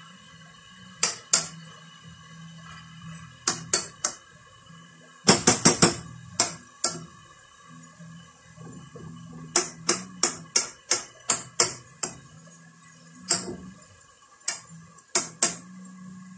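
A spoon stirring chopped vegetables in a metal pot, knocking against the pot in sharp clacks that come in irregular clusters.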